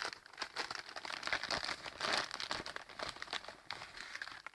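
Dry crinkling and rustling of material being handled by hand, thick with small crackles, stopping abruptly near the end.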